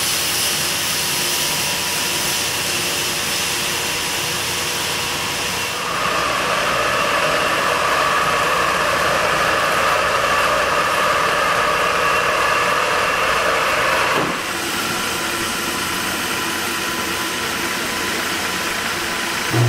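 Yarn warping machinery running steadily, a continuous mechanical hum and hiss. The noise grows louder and more mid-pitched about six seconds in, then drops back near fourteen seconds.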